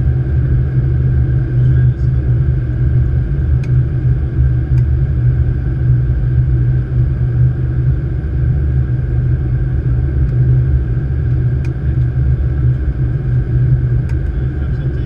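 Steady low rumble of airflow and engine noise inside a Boeing 777-200ER flight deck during descent on approach, even in level throughout, with a few faint ticks.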